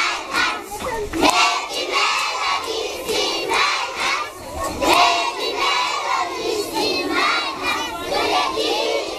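A large crowd of schoolchildren shouting and cheering together, many high voices overlapping without a break.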